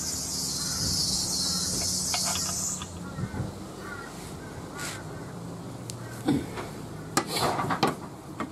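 Insects buzzing at a high pitch, cutting off suddenly about three seconds in. A few sharp clinks and knocks follow near the end as tools and metal suspension parts are handled under the car.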